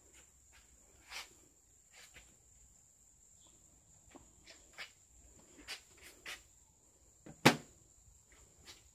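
Scattered footsteps and shoe scuffs on a concrete floor, with one much louder knock a little before the end, over a faint steady high-pitched whine.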